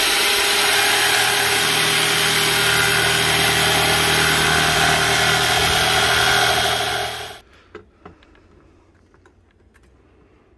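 Corded electric jigsaw running steadily as its blade cuts through a plywood sheet, then stopping abruptly about seven seconds in.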